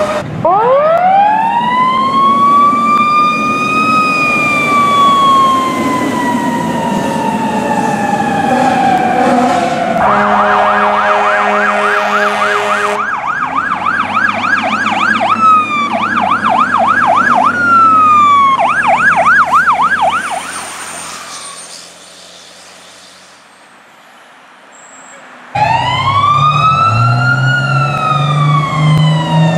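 Fire truck sirens on emergency runs. A siren winds up and slowly falls away for about ten seconds, then a horn blasts for about three seconds. A fast electronic yelp follows and fades out, and near the end another siren winds up over the truck's engine.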